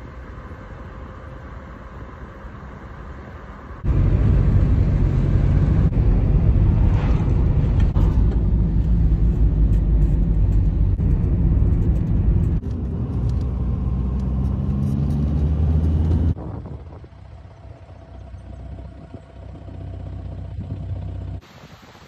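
Van engine and road noise heard from inside the moving cab. The loudest stretch is in the middle, where the engine note rises as the van speeds up. The sound jumps sharply between louder and quieter stretches at cuts.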